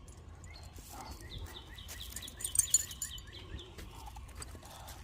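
A bird singing a quick run of about a dozen repeated downslurred chirps, with a few sharp clicks partway through.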